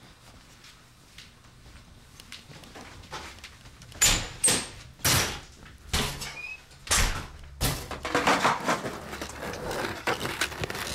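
A run of about seven loud bangs and clunks in quick succession, door clunks among them, with a brief squeak. These are followed by a steady rushing noise that builds near the end.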